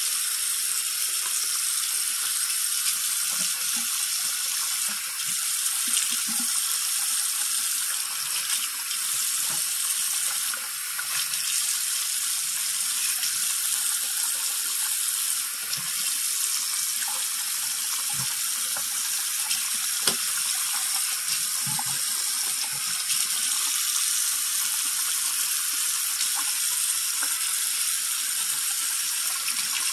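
Bathroom sink tap running hot water in a steady rush, with occasional light knocks of a scrub brush against the basin.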